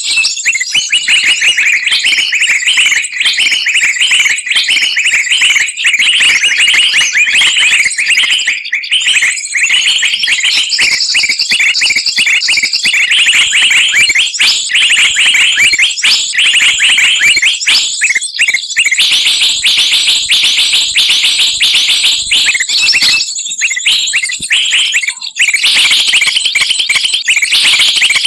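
A loud, busy mix of many small songbirds chattering, with rapid shrill chirps and trills overlapping without a break: a bird-lure recording played to call wild birds down.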